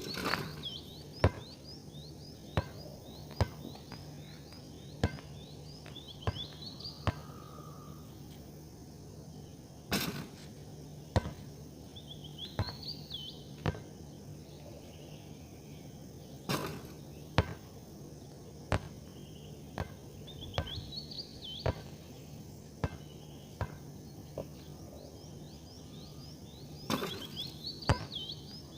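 Birds calling in short, quick runs of high chirps that come in bursts every few seconds, over sharp clicks or knocks about once a second, a few of them louder, and a faint steady low hum.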